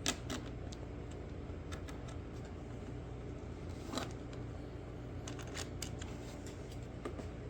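Light clicks and taps of small hand tools and metal parts being handled during riveting, over a steady low hum. Two sharper knocks stand out, one just after the start and one about four seconds in.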